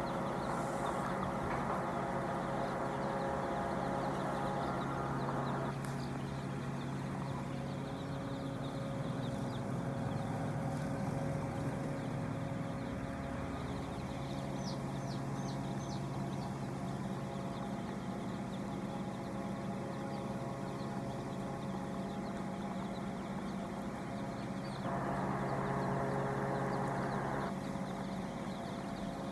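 A steady machine hum from a running motor, holding one even pitch throughout and swelling a little for a couple of seconds near the end, with a few high chick peeps about halfway through.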